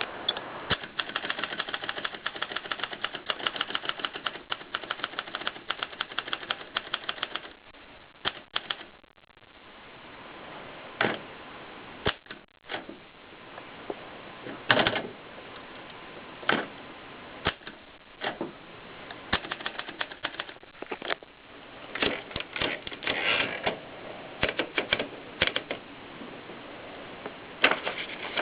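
Kolibri portable typewriter being typed on: a fast, even run of keystrokes for about seven seconds, then a brief pause and slower, irregular keystrokes, some of them louder strikes.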